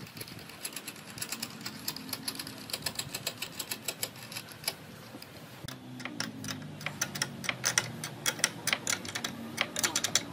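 Quick, irregular metallic clicking of a nut being run onto a steel bolt and tightened with an open-end spanner, the spanner clicking against the nut at each reset, with a short lull about halfway through.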